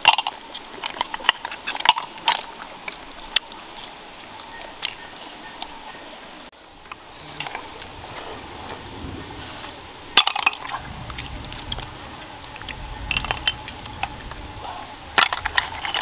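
Cooked snails being eaten: wet slurps as the meat is sucked out of the shells, and the shells clicking against each other in scattered clusters, over a faint steady hiss of running water.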